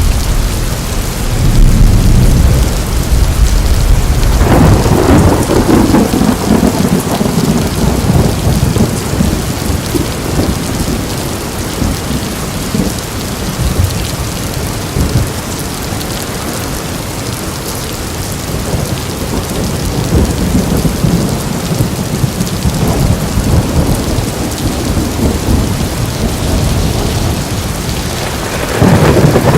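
Thunderstorm: steady heavy rain hissing, with low thunder rumbling in the first seconds, a louder roll of thunder about five seconds in, and another loud roll starting just before the end.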